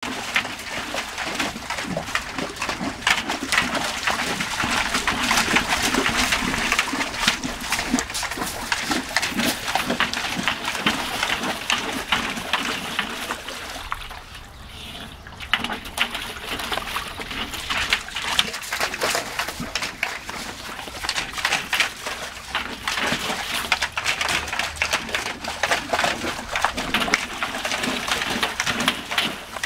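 A dog splashing and pawing in a galvanized metal tub of water: constant sloshing and splatter, briefly quieter about halfway through.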